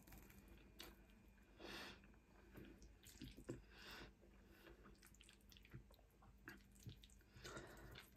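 Quiet chewing and wet mouth sounds of someone eating tagliatelle bolognese, with a few short slurps as pasta is drawn in.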